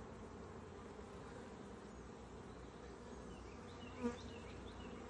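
A colony of honeybees humming steadily over an open hive, with one bee buzzing briefly close by about four seconds in.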